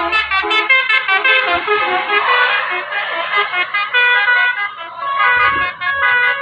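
Tour bus's musical air horn (basuri type) playing a quick tune, its notes stepping rapidly up and down with short breaks between them.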